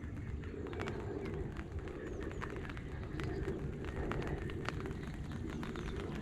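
Rain falling, with many irregular drops ticking, over a steady low rumble, and a few faint high bird chirps.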